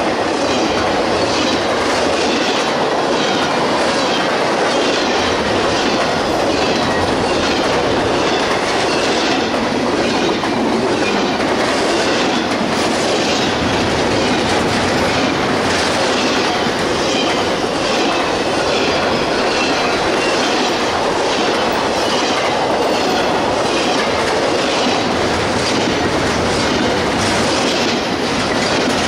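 Cars of a CSX intermodal freight train rolling steadily past at close range, a continuous loud rumble with the wheels clicking rhythmically over the rail joints.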